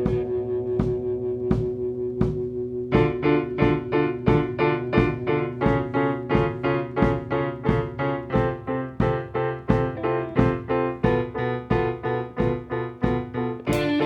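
Instrumental music with a steady beat; repeated keyboard chords come in about three seconds in and pulse evenly with it.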